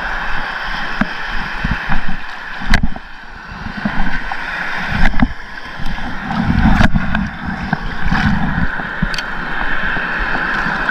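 Sea water sloshing and waves washing around someone wading in the sea, with wind rumbling on the microphone in uneven gusts and a few sharp clicks.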